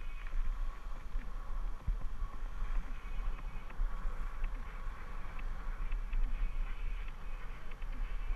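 Wind buffeting the microphone of an action camera on a moving bicycle, a heavy uneven low rumble, over a faint steady whine and light ticks and rattles from the bike and its tyres rolling over sand.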